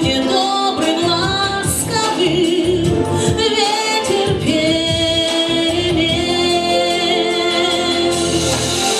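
A female voice singing long held notes over backing music.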